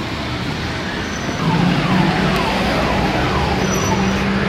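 A repeating electronic falling tone, about two sweeps a second, starting about a second and a half in over a steady low hum and street noise.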